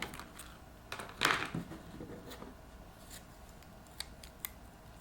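DeWalt MT16 stainless-steel multi-tool being handled: scattered small metal clicks and a louder short scrape about a second in.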